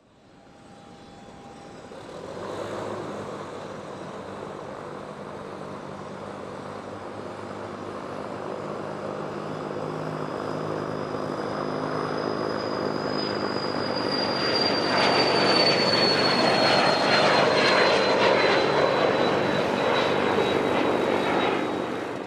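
Business jet's turbine engines growing steadily louder as the aircraft passes close by. A high whine slides slowly down in pitch as it goes past.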